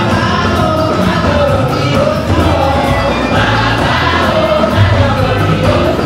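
Children's choir singing a gospel song into microphones through a PA, over an amplified accompaniment with a steady bass line.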